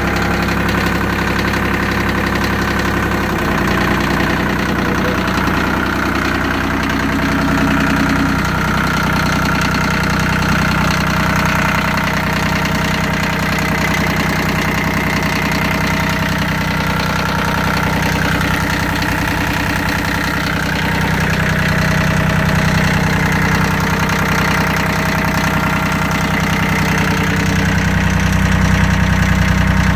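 Yanmar YM1401D compact tractor's diesel engine idling steadily, a little louder near the end.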